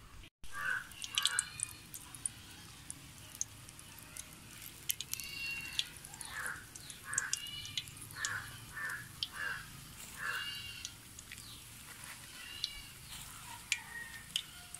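Snake gourd bajji deep-frying in hot oil, a faint sizzle with scattered small crackling pops. Over it, short bird calls repeat every second or two.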